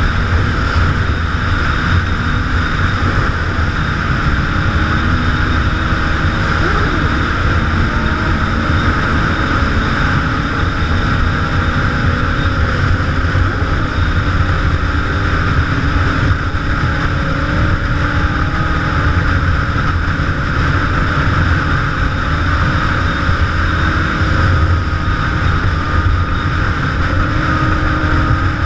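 Motorcycle riding at speed, heard from a camera on the bike: a steady mix of engine and wind noise. Fainter engine notes from the surrounding sport bikes rise and fall underneath.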